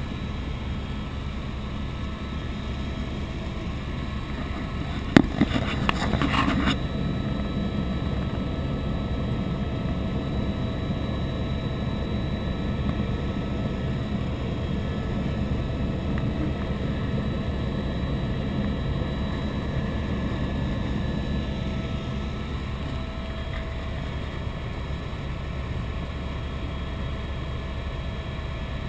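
Tour helicopter in flight heard from inside the cabin: a steady engine-and-rotor drone with a low hum. A sharp knock about five seconds in, followed by a second or so of rattling crackle.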